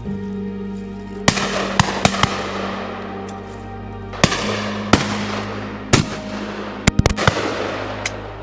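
Shotgun shots, about ten sharp reports spaced irregularly with several in quick succession near the end, each trailing off in a short echo, over steady background music.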